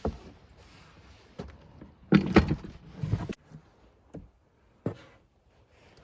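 Irregular knocks and clunks, with a loud cluster of them about two to three seconds in and single ones before and after.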